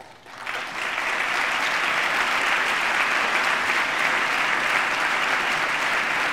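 Large audience of members of Congress applauding: the clapping swells over the first second and then holds steady.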